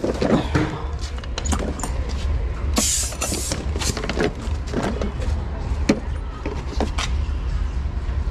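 Metal hand tools clinking and knocking as sockets and spanners are handled in a socket set, over a steady low rumble; a short burst of hiss about three seconds in.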